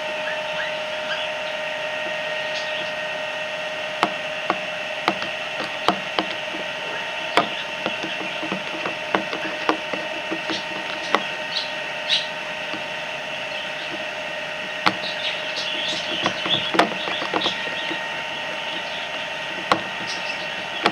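Irregular clicks and taps of a utensil knocking against a container as slime is stirred, over a steady background hum.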